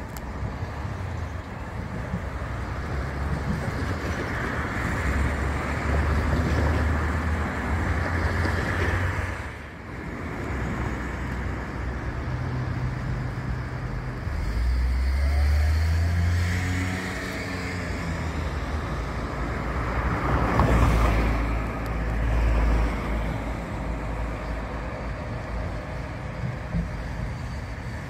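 Street traffic: a run of motor vehicles passing one after another. One engine note rises as a vehicle pulls away a little past halfway, and the loudest pass comes about two-thirds of the way in.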